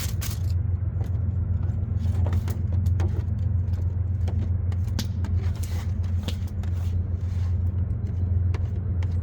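A steady low rumble runs underneath, with scattered light clicks and clinks over it.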